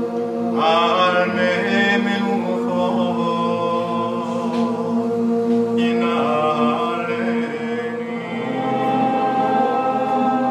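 Voices chanting in long held notes, with a voice rising into a wavering melody about half a second in and again around six seconds in.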